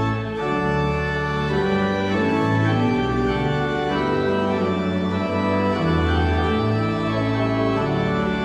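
Church organ playing slow, sustained chords, the bass moving to a new note about once a second.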